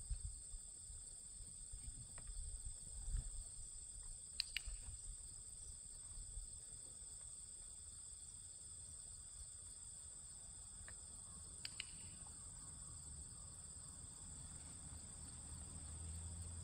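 Faint, steady high-pitched chirring of crickets and other insects in a field, over a low rumble. Two short sharp clicks stand out, about four and a half and twelve seconds in.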